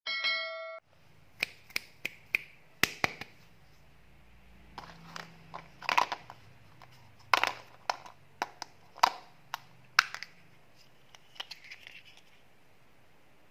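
A brief chime with several bell-like tones at the start, then the green plastic case of a Hubba Bubba Bubble Tape gum roll being handled and pried open by hand: sharp plastic clicks and cracks, a few a second, irregular.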